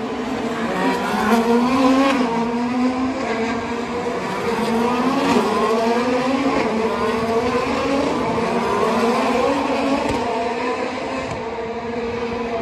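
IndyCar race cars' twin-turbocharged V6 engines passing one after another, their notes rising and falling through acceleration and gear changes.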